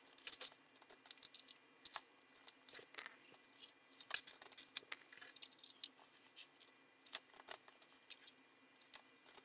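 Faint, scattered small clicks and taps of test leads and probe plugs being handled and pushed into the banana-socket terminals of an audio selector switch, over a faint steady hum.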